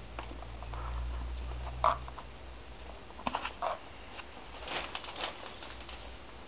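Scattered clicks and light knocks as a manual strapping combination tool and polypropylene strap are handled and the strap is threaded into the tool. A sharper click comes about two seconds in, and further small clusters of clicks follow.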